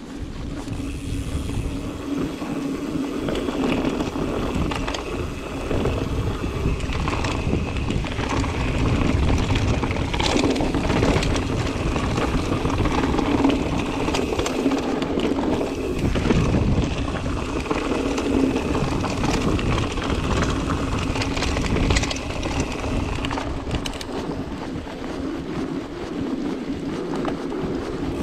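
Mountain bike being ridden: a steady hum of tyres rolling over the ground under wind noise on the camera microphone, with a few sharp knocks and rattles from the bike.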